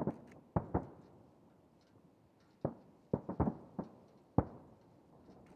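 Distant aerial firework shells bursting in a series of sharp booms, some in quick clusters, each trailing off in an echo; the loudest comes a little past the middle.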